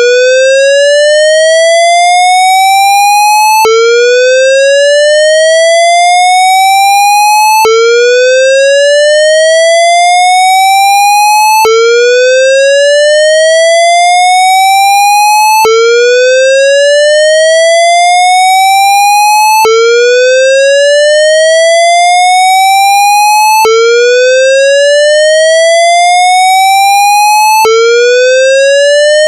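Synthesized evacuation whoop tone: a square-wave tone rising steadily through one octave over about four seconds, then dropping straight back and rising again, over and over without a break. It recreates the whoop signal of a Siemens MXL-V voice evacuation fire-alarm system, the tone that calls for a building to be evacuated.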